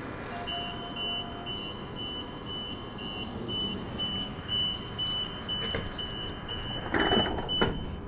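Door-closing warning beeps of a Transperth Bombardier B-series electric train: a high beep repeating about twice a second, signalling the doors are about to shut before departure. Near the end there is a short rush of noise as the doors slide closed.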